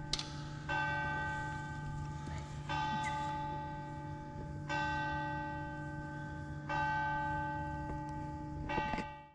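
A church bell tolling, one bell struck about every two seconds, five strokes in all, each ringing on until the next. The sound cuts off abruptly near the end.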